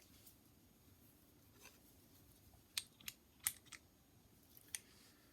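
A few faint, light clicks and taps of small plastic and metal parts being handled, as a thermoplastic socket adapter is fitted onto a Swiss army knife. The clicks are sparse, with most of them falling in the middle of an otherwise near-silent stretch.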